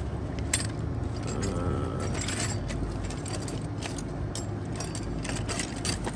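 Metal hand tools and sockets clinking and rattling as they are rummaged through in a soft tool bag, with many short irregular clicks over a steady low rumble.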